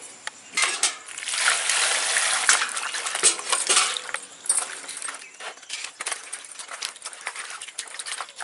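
Hands washing yardlong beans in a plastic basin of water: water splashing and sloshing as the beans are rubbed and stirred. It is loudest for the first few seconds, then softer and more broken.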